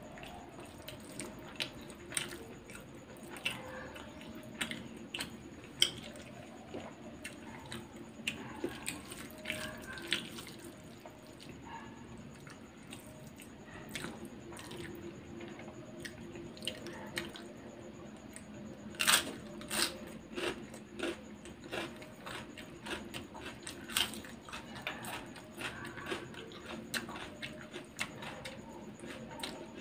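A person eating chicken biryani by hand, close to the microphone: a steady run of short, wet clicks and smacks from chewing and from fingers squishing and mixing the rice and gravy, with a louder cluster about two-thirds of the way through.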